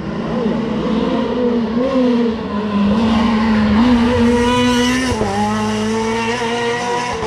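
A rally car going flat out past the spectator on a night special stage, its engine revving hard with short rises and dips in pitch. About five seconds in, as the car goes by, the engine note drops sharply and then holds lower as it pulls away.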